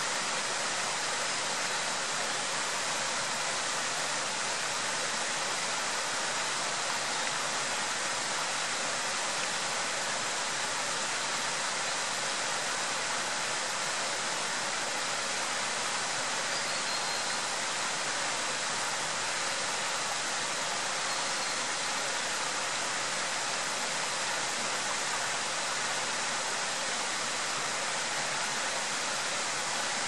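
Small mountain-stream waterfall: water spilling over rock ledges and splashing into a pool, a steady, even rush heavy in the upper range.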